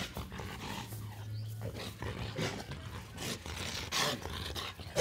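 Large dogs growling low and moving about, with short irregular rough sounds.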